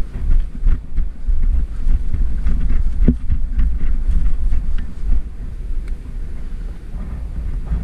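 Wind buffeting the microphone, an uneven low rumble, with scattered faint clicks and rustles and one sharper knock about three seconds in.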